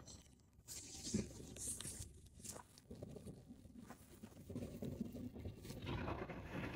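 Handling noise from a phone camera being moved about and set down in dry grass: scattered rustling and light clicks. Near the end the sound of a garbage truck on the road grows.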